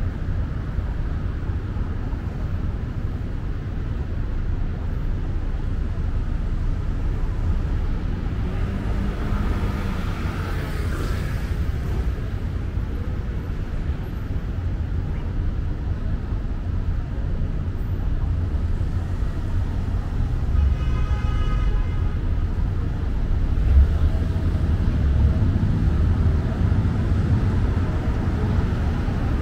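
City street traffic: a steady low rumble of cars, growing louder over the last several seconds as a group of cars drives up. A short pitched tone of about a second and a half sounds about two-thirds of the way through.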